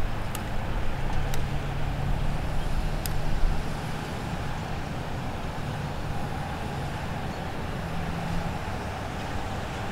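Road traffic passing: a vehicle's engine and tyres make a steady low rumble, with a few faint clicks in the first few seconds.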